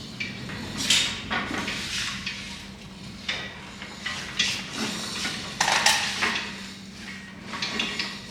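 Steel welding cart loaded with a full-size gas bottle and a welder, pushed across the shop floor and rattling and clanking unevenly. It has no casters on the back, so it must be tipped and wheeled like a toolbox. A faint steady hum sits under the clatter.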